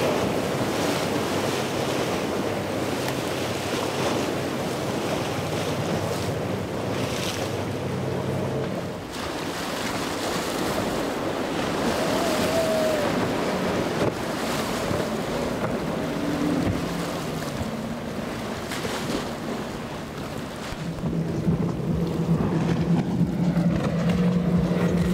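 Powerboat engines running over the wash of waves and surf, with wind buffeting the microphone. Near the end the engine tone grows louder as the twin Mercury 150 outboards of a Concept center console run past at speed.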